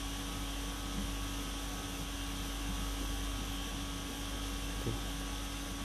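Steady low background hum with a constant faint tone and no change in level, with one soft tap about five seconds in.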